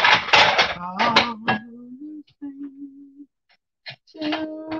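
A person's voice singing wordless long held notes, opening with a loud, noisy burst in the first second.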